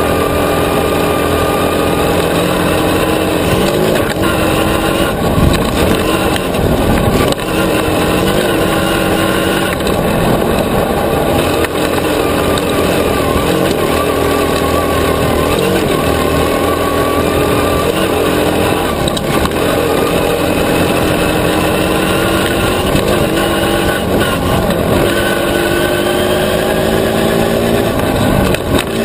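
Off-road buggy engine running hard on a dirt trail, its pitch climbing and dropping again and again as the throttle is opened and eased off.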